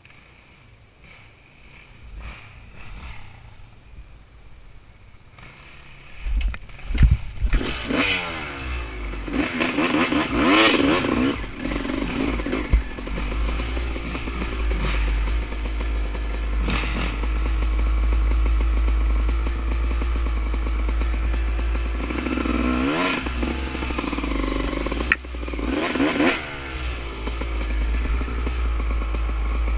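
Honda CR250R two-stroke dirt bike engine, quiet for the first few seconds and then revving hard up and down through the gears as the bike rides a trail, with a heavy low rumble of wind on the helmet camera.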